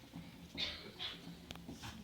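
LG F14B3PDS7 front-loading washing machine running quietly: a faint low hum with irregular soft swishes and one sharp click about a second and a half in.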